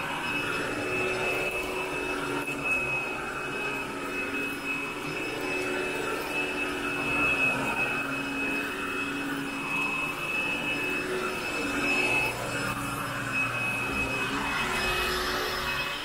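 Hoover AirLift Light upright vacuum cleaner running steadily with a high-pitched motor whine while it is pushed over carpet.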